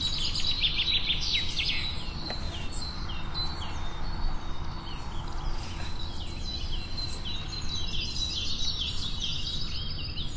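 Forest ambience: many birds chirping in quick repeated downward-sweeping calls, with a thin steady high tone behind them, over a low steady rumble.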